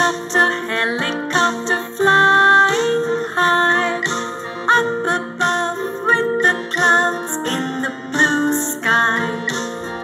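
Children's nursery-rhyme music: a bright, quick tune of pitched instrument notes.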